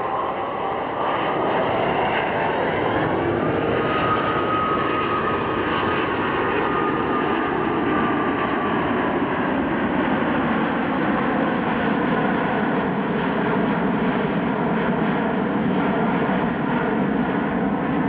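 Airbus A380's four jet engines during a low pass, a loud, steady rumble with whining tones that slowly drop in pitch as the airliner passes and flies away.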